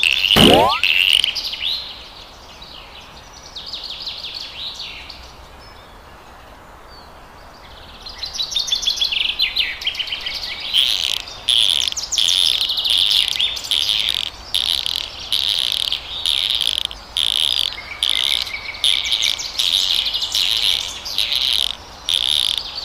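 Birds chirping: short high chirps repeated in quick runs, sparse early on and then busy and continuous from about a third of the way in. A brief rising sweep sounds just after the start.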